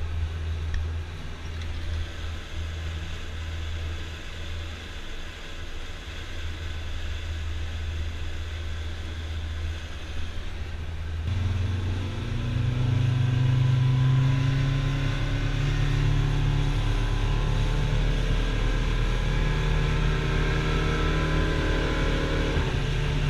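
A boat's engine heard from inside the cabin, running steadily at low speed, then throttled up about halfway through: the engine note rises in pitch, gets louder and settles at a higher cruising speed.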